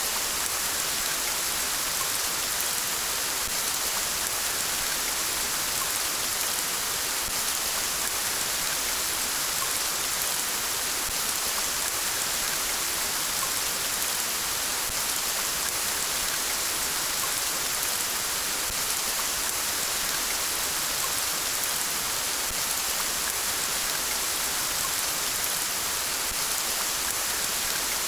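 Steady rain falling, an even hiss of countless drops that does not change.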